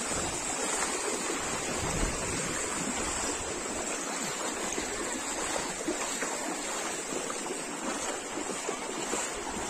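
Steady rushing of wind on the microphone outdoors, with faint splashes from people wading through knee-deep floodwater.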